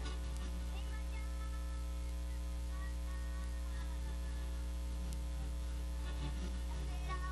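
Steady electrical mains hum dominates, with faint music and singing from the stage show beneath it.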